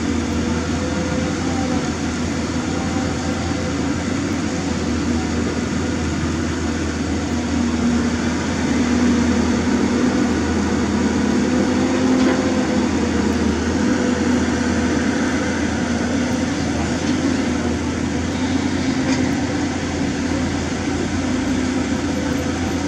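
Diesel engine of a Caterpillar 320D L long-reach excavator running steadily under load as the arm digs and swings, its hum wavering a little in pitch and growing slightly louder in the middle.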